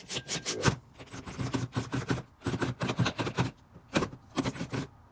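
Irregular scraping, rubbing and light knocks of hand work on the console parts, in a quick uneven series of short strokes.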